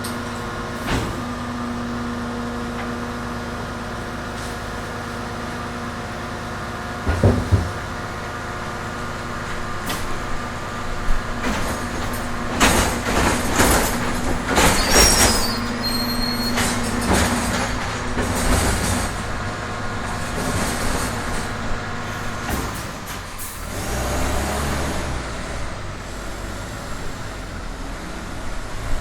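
Garbage truck working a pickup: its diesel engine idles with a steady hum while loud metal clanks and a run of bangs and clatter come from the bins being emptied, with a brief high squeal about halfway. Near the end the steady engine note gives way to a lower rumble.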